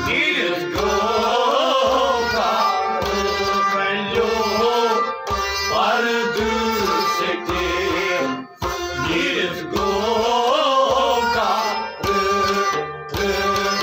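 Kashmiri Sufi kalam: a man singing in phrases over the held chords of a harmonium, with a Kashmiri rubab and a hand drum keeping a steady beat.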